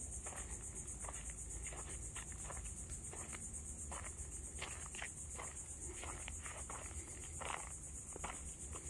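A steady, high-pitched insect chorus buzzes throughout. Soft footsteps crunch on a sandy trail at a slow walking pace, about two steps a second.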